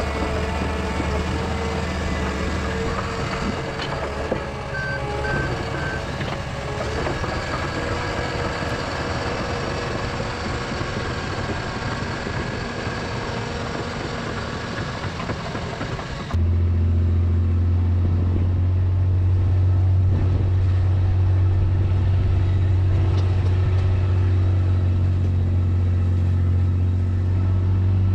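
John Deere 750L crawler dozer working, its engine running steadily, with three short reversing beeps about five seconds in. About sixteen seconds in the sound switches suddenly to a louder, steady engine running close to the microphone.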